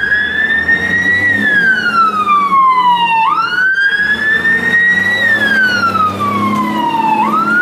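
Fire engine siren wailing. Its pitch climbs to a peak, slides slowly down, then jumps back up, about every four seconds, with the truck's engine and road noise underneath.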